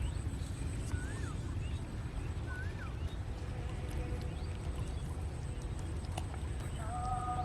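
Outdoor ambience: a steady low rumble, with a bird's short rising-and-falling whistle repeated three times about a second and a half apart, and a thin steady high tone. A couple of steady tones come in near the end.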